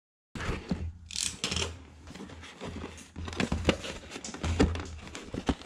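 Cardboard toy box and paper insert rustling and scraping as a hand rummages inside the box, with many small clicks, starting abruptly a moment in. A steady low hum runs underneath.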